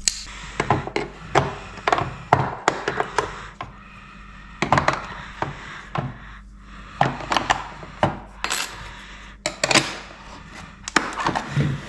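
AA batteries being pressed into the plastic battery compartment of a Spektrum DXS radio transmitter, then the battery cover snapped back on: an irregular series of sharp plastic clicks and knocks.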